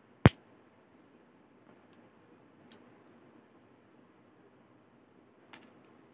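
Stainless-steel blades of a folding camping multi-tool clicking as its tools are worked open and shut: one sharp snap just after the start, then two fainter clicks.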